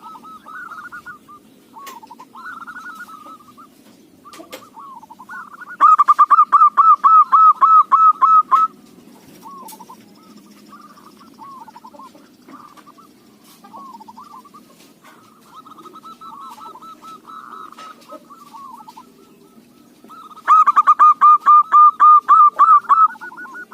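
Zebra dove (local perkutut) cooing: two loud runs of rapid, evenly repeated coos, one about a quarter of the way in and another near the end, with softer cooing between them.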